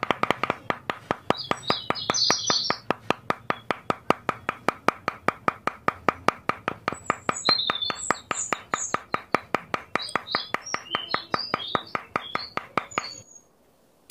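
A small hammer taps a thin wooden post down into sand with quick, even strokes, about four or five a second, and stops shortly before the end. Faint bird chirps come and go behind the tapping.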